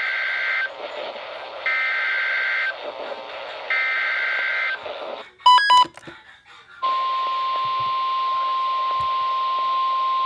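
Emergency Alert System data header over a weather-radio hiss: three warbling data bursts of about a second each, a second apart, signalling a new weather warning. Two short sharp beeps follow, then from about seven seconds NOAA Weather Radio's 1050 Hz warning alarm tone sounds steadily.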